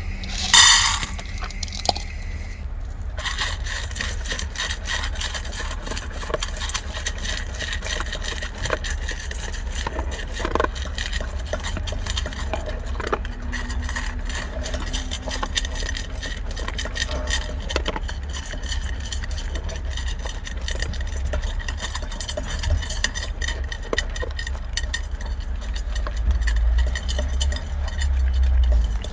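Labrador retriever eating dry kibble: a brief rattle of food pouring about half a second in, then many small irregular crunches and clinks as it chews and noses the bowl, over a steady low rumble.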